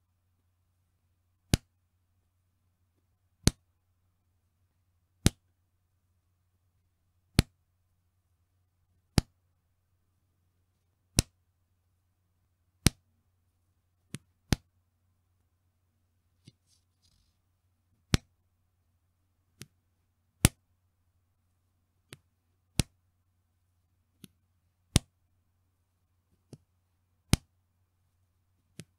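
Bra band elastic pulled and let go, snapping with a sharp slap ('pechin') about every one and a half to two seconds, some snaps much softer than others.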